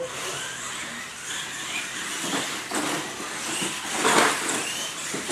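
Radio-controlled monster truck driving over wooden ramps on a concrete floor: its motor and gears whine and rev up in short rises, with a few knocks and a loud crash about four seconds in as the truck lands hard.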